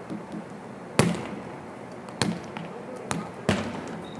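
A volleyball being struck during a digging and passing drill: sharp slaps of the ball off hands, forearms and the floor, four hits spread over a few seconds, each ringing in the gymnasium's echo.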